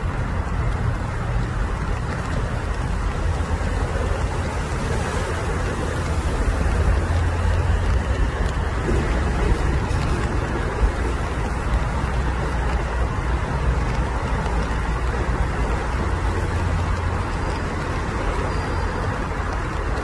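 Steady low rumble with an even hiss above it, an unbroken outdoor background noise like distant road traffic.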